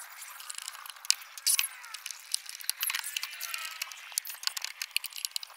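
Irregular light clicks and knocks of a plywood cabinet being handled and fitted by hand. The sound is thin and tinny, with no low end.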